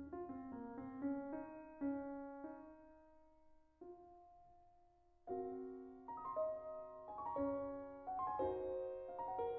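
Background music: solo classical piano playing a slow phrase of single notes and chords, thinning to one held note a little before the middle, then fuller chords.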